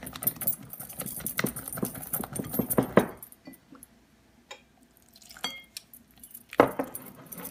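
A whisk beating thick chickpea-flour batter in a glass bowl: rapid clicks and knocks of the whisk against the glass, stopping for about two seconds midway, then starting again near the end.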